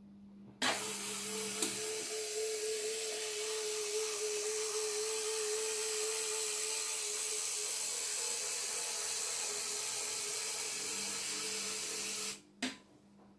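Small electric motor of a model narrow-gauge field-railway locomotive running as it pulls tipper wagons along the track: a steady whirring whine with a hiss. It starts suddenly with a click less than a second in and cuts off near the end, followed by another click.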